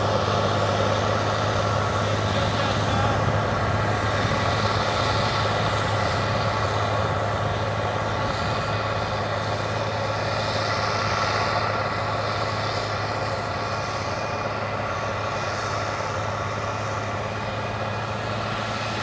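Heavy four-wheel-drive tractor's diesel engine running steadily under load as it pulls a drag disc harrow through the soil, a continuous low hum with a broad rushing noise over it, slowly fading as it moves away.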